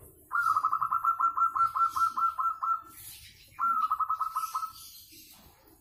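A caged zebra dove (perkutut) cooing: two bouts of quick, rolling, even notes, a longer one and then a shorter one about a second later.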